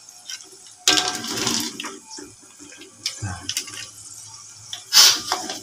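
A ladle stirring and scooping broth in a large pot of freshwater snails in yellow soup. Broth splashes and pours back off the ladle about a second in and again near the end, with light ladle knocks between.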